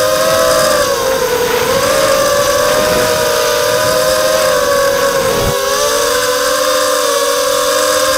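Brushless motors and propellers of a 180-size FPV racing quadcopter, heard from its onboard camera: a whine of several close pitches that waver up and down with the throttle. A rush of air noise underneath drops away about five and a half seconds in.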